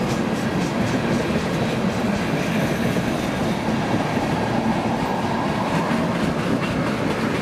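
Railroad tank cars of an ethanol train rolling past, steel wheels clicking over rail joints over a steady rumble.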